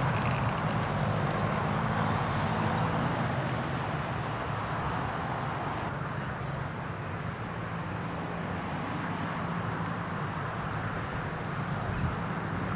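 Small racing kart engines running on the circuit, a steady engine drone that fades a little mid-way and builds again near the end as the karts come round.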